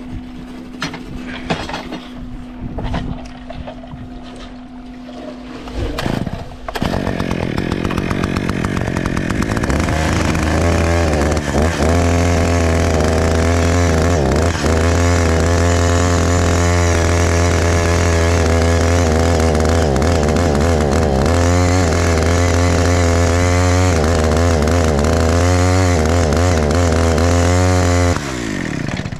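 Small gas engine of a septic tank mixer starts a few seconds in and runs hard, its pitch wavering up and down as it stirs the tank's contents before pumping. It shuts off near the end.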